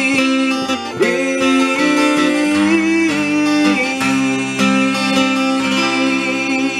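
Steel-string acoustic guitar strummed with a man singing, closing the song. Chords are struck about a second in and again about four seconds in. The last chord and a long held, wavering sung note then ring on to the end.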